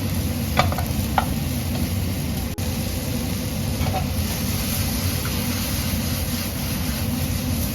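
Onions and shimeji mushrooms sizzling in oil and butter as they are sautéed in a pan, over a steady low rumble, with a few short taps of the stirring utensil against the pan.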